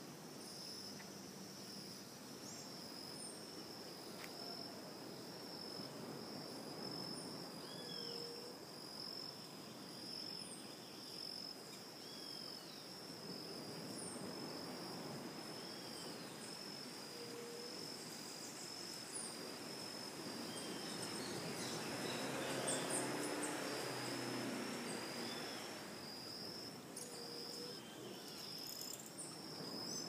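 A steady chorus of insects chirring in a fast, even pulse on one high pitch, with short falling bird chirps repeating every few seconds. About two-thirds of the way through, a rush of noise swells and fades over several seconds.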